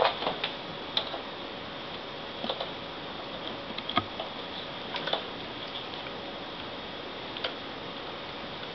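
Irregular small clicks and taps of a screwdriver and tiny screws being worked into a laptop's screen assembly, a cluster at the start and then single ticks every second or two, over a steady faint hiss.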